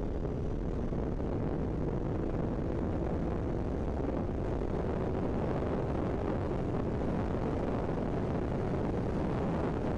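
Suzuki Hayabusa's inline-four engine pulling hard at high speed, with a steady rush of wind over the microphone.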